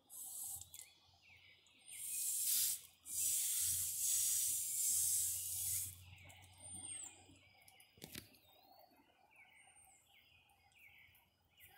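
Water from a garden hose hissing as it sprays against the body of a pickup truck, in bursts over the first six seconds and then stopping. Birds sing throughout with repeated short, high, falling chirps.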